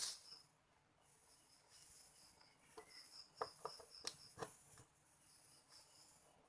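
Faint, high insect chirping in short pulsed trains, with a few soft clicks about three to four seconds in.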